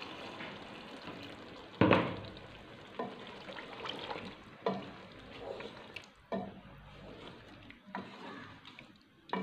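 Water poured from a jug into a pot of potatoes in masala, then a wooden spatula stirring the wet masala and knocking against the aluminium pot several times, the first knock about two seconds in the loudest.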